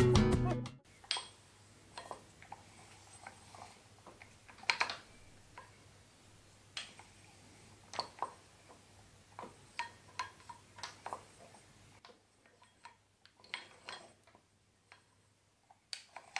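Handwheel of an old manual milling machine turned back and forth by hand, with irregular metallic clicks and knocks, some ringing briefly, from the table's lead screw and nut taking up their play.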